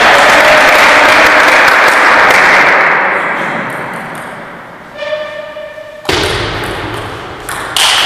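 Table tennis ball struck and bouncing as a point begins: sharp knocks about six seconds in and again near the end. Before that, a loud, even rushing noise fills the first three seconds and fades away.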